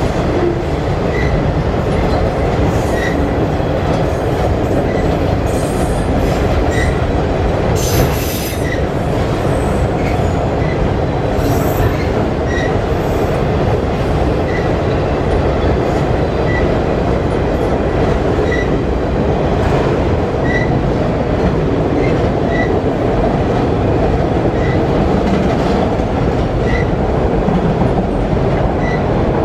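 Freight train of autorack cars rolling across a steel girder bridge: a steady, heavy rumble of wheels on rail that does not let up. A faint short high tone recurs about every two seconds, and a brief hiss comes about eight seconds in.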